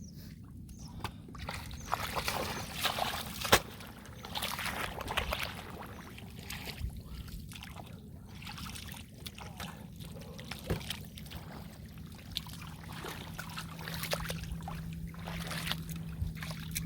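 Irregular sloshing and splashing of hands and arms working through shallow muddy water, with a sharp knock about three and a half seconds in. A faint steady hum comes in about ten seconds in.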